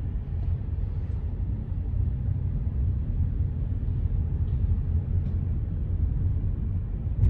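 Steady low rumble of a car rolling slowly, heard from inside the cabin: engine and tyre noise, with a couple of faint ticks.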